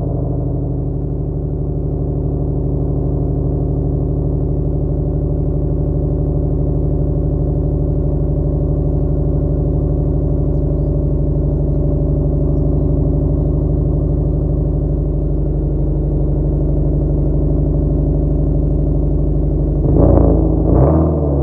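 Subaru WRX turbocharged flat-four engine idling steadily on newly fitted equal-length headers, with two quick revs near the end.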